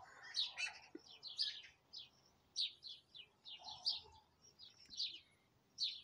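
Small birds chirping: a faint, irregular string of short high chirps.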